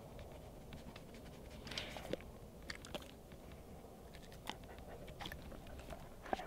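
Dog crunching and chewing a cookie: scattered short, crisp crunches over a quiet background.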